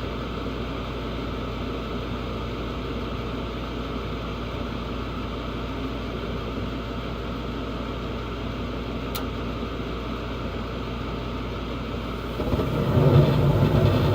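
Carrier gas furnace running its start-up sequence: a steady motor hum, with a single sharp click about nine seconds in. About twelve and a half seconds in, a louder low rumble starts as the burners light, now that the gas valve has been switched back on.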